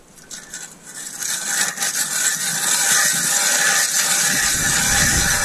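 Hand ice auger drilling a hole in lake ice, its blades cutting and scraping through the ice. The noise starts faint and builds to a steady level over the first two seconds.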